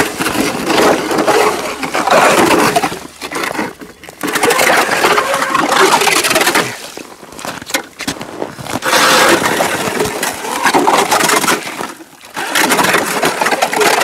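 Electric ice auger boring through ice: the grinding crunch of the blades cutting ice over a quiet motor, in several bouts of a few seconds with short pauses between.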